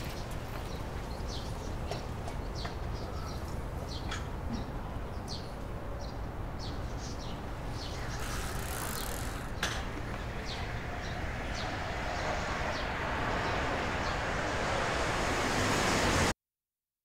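Outdoor ambience: a steady low rumble with small birds chirping in short high calls, then a rising rush of noise that swells louder over the last few seconds and cuts off suddenly.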